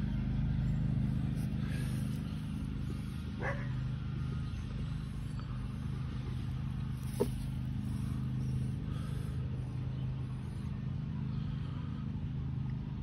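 A steady low mechanical hum, with a dog barking once about three and a half seconds in and a single sharp click about seven seconds in.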